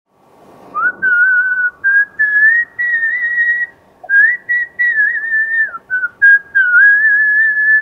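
A man whistling a tune through pursed lips: one clear, fairly high tone that wavers up and down, in short phrases with brief gaps between them, starting about a second in.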